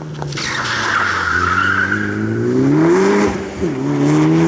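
Mitsubishi Lancer Evolution IX rally car's turbocharged four-cylinder engine revving hard under acceleration out of a corner, with its tyres skidding on the dusty surface. The revs climb steadily, drop at a gear change about three seconds in, then climb again.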